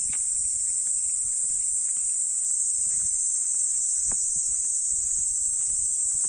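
Insects buzzing in one steady, high-pitched drone.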